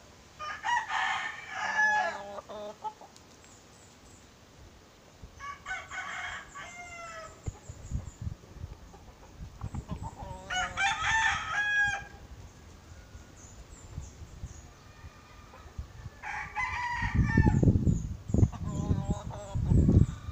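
Roosters crowing: four long crows roughly five seconds apart, with low rumbling thumps during the last few seconds.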